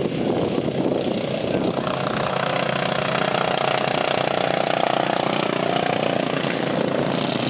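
Racing lawn mower engine running at speed as the mower drives past close by. Its steady engine note is clearest a few seconds in as it passes.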